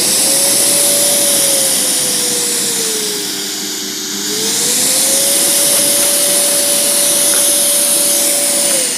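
Festool MIDI dust extractor running at full speed with a steady rush and motor whine. About three seconds in the whine drops as the speed is turned down, then rises back to full speed about a second later, showing the speed control works after the switch repair. Near the end the motor cuts off and the whine falls as it runs down.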